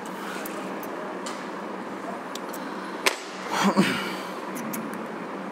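Metal parts of a disassembled microscope objective being handled, over a steady low hum. A sharp click comes about three seconds in, followed at once by a short, louder sound that falls in pitch.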